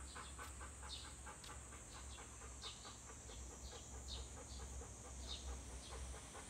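Presa Canario panting quickly and evenly, several breaths a second, with faint chirps from birds or chickens scattered over it.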